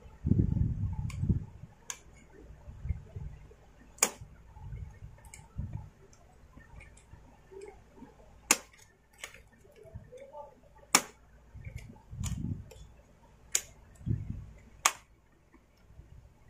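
Irregular sharp clicks and taps of a screwdriver and small metal parts while a carburetor is fitted to a Stihl MS250 chainsaw, about eight in all, mixed with dull low bumps from handling the saw's plastic housing. The loudest bump comes right at the start.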